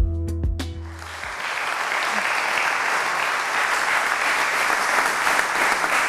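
Show theme music with a heavy bass beat and sharp hits, ending about a second in, then a studio audience applauding steadily.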